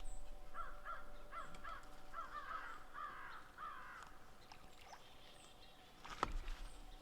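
Crows cawing, a quick run of about ten harsh caws, followed about six seconds in by a single sharp knock with a low thud.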